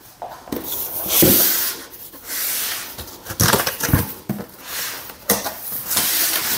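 Cardboard box being handled and opened by hand: cardboard flaps scraping and rubbing against each other, with a few dull knocks.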